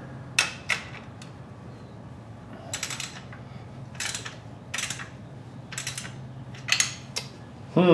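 Ratchet wrench clicking in short bursts of rapid clicks as it is swung back and forth, tightening the bolts of an engine-mount bracket on a Honda CX500. A faint steady low hum runs underneath.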